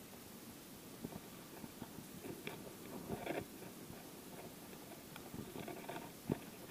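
Faint handling noise from the camera being moved: scattered rustles and a few small clicks and crackles, a little busier about two and a half to three and a half seconds in.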